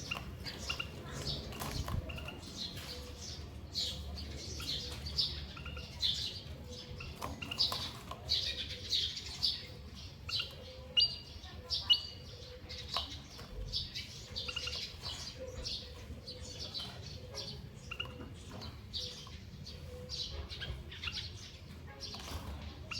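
Small caged birds, a canary and a white-headed munia, giving many short chirps and tweets in quick succession, with a few sharp clicks from movement in the cage, loudest a little past halfway.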